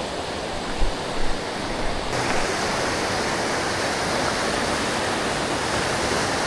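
Steady rushing of river water over the Quiver Falls rapids, a constant hiss-like rush that grows louder and brighter about two seconds in.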